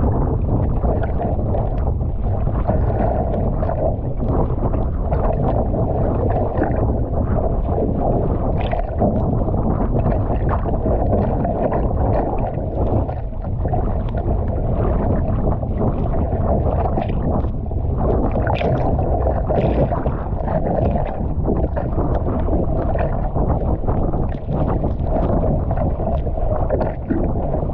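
Wind rumbling on the microphone over a kayak paddled through choppy sea: water sloshing against the hull and irregular splashes from the paddle blades.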